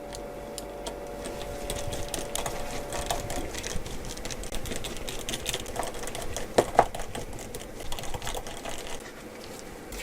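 Rapid small clicks and rattles of a precision screwdriver and tiny screws, taking out the screws at a Samsung Galaxy A13's charging-port board. A faint steady hum runs for the first few seconds, and two louder knocks come a little past the middle.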